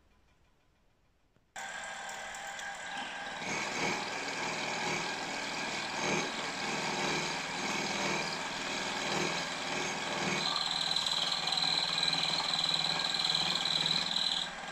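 Near silence, then a milling machine comes in abruptly, running steadily with its end mill cutting across the end of a small metal casting held in a vise. About ten seconds in, a steady high-pitched whine rises out of the cut and stops just before the end.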